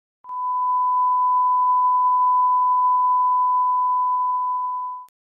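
Steady 1 kHz reference test tone that goes with colour bars: a single unwavering beep that starts about a quarter second in and cuts off suddenly near the end with a click.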